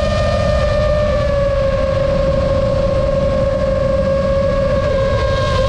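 FPV quadcopter's motors and propellers whining in flight at a near-steady pitch that sags slightly midway and climbs again near the end, over rumbling wind noise.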